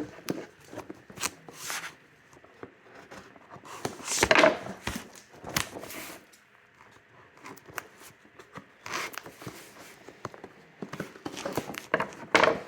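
A cardboard shipping box being worked open by hand: scattered scrapes, rustles and knocks, with louder bursts about four seconds in and again near the end.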